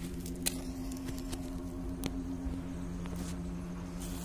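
Steady low mechanical hum, like a running engine or motor, with a few faint clicks over it.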